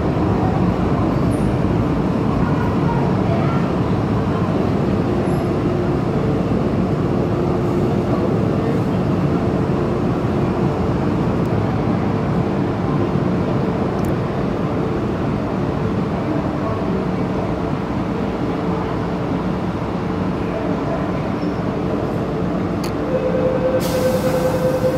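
MTR Kwun Tong line metro train running through a tunnel, heard from inside the train: a steady rumble of wheels on rail. Near the end a steady tone joins and the sound grows a little louder.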